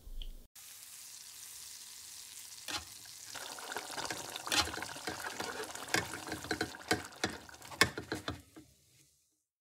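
Food sizzling in a frying pan: a soft hiss that builds into dense crackling and popping, then cuts off abruptly near the end.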